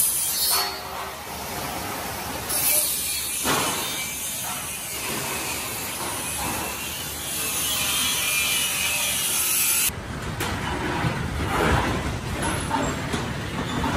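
Construction-site work noise: tools scraping and sawing, with a few knocks.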